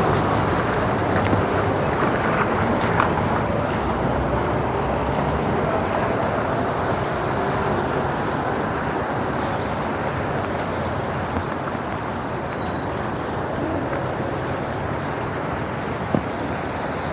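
Steady wash of city traffic on a wet street, tyres hissing on rain-soaked asphalt, easing slightly over time, with one sharp tap near the end.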